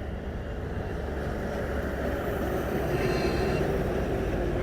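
Motorcycle running along a road with steady engine and road noise, growing slightly louder. A faint, brief high tone sounds about three seconds in.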